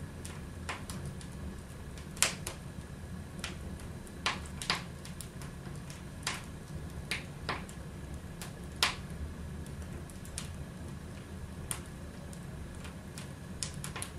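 Wood fire crackling in a fireplace: irregular sharp pops and snaps, a few seconds apart or closer, the loudest about two seconds in and near nine seconds, over a steady low rumble.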